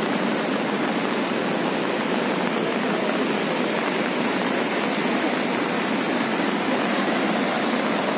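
Steady rushing noise of a fast-flowing river in flood, muddy water racing over its banks.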